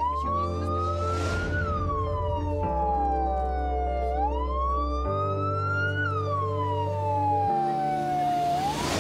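An emergency-vehicle siren in a slow wail, rising for about a second and a half and falling for about two and a half, twice over. Beneath it, background music holds sustained chords whose bass note changes every couple of seconds.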